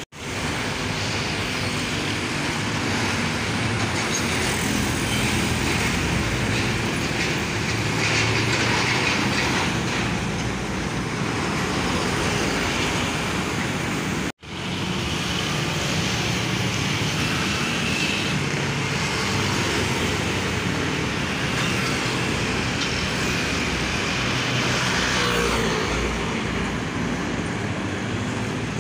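Steady road traffic close by: motor scooters, cars and trucks passing, engines and tyre noise. The sound drops out for a split second about halfway through.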